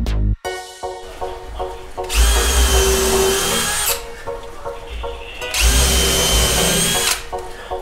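Cordless drill running in two bursts, about two seconds and then a second and a half, drilling upward into the underside of a wooden countertop, with a steady whine. Background music plays throughout.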